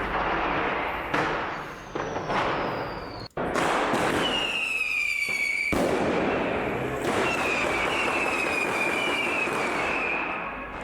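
Street fireworks and firecrackers going off in a dense, continuous barrage of bangs and crackling. High whistles from whistling fireworks sound through the middle and latter part, sliding slightly downward in pitch.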